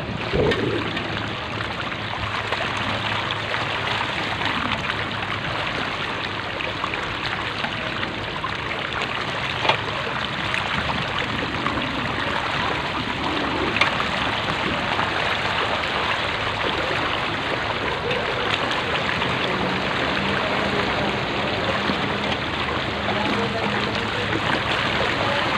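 Ankle-to-shin-deep floodwater on a street sloshing and rushing steadily as it is moved through. A low steady hum joins about three-quarters of the way in.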